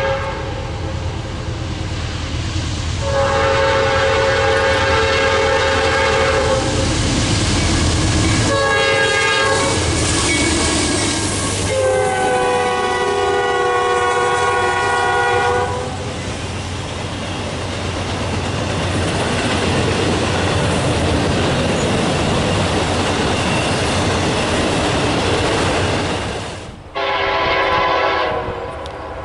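Freight locomotive air horn sounding long, short and long blasts (the end of the grade-crossing signal), followed by the steady rumble and clatter of the train rolling past on the rails. Near the end, after an abrupt cut, another locomotive horn blasts.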